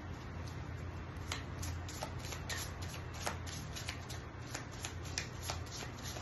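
A deck of tarot cards being shuffled by hand: many short, irregular clicks and flicks of card against card, with a steady low hum underneath.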